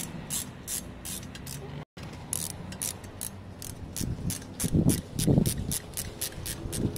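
Hand ratchet clicking in quick, repeated strokes, several clicks a second, as it backs a cylinder-head stud out of a motorcycle engine.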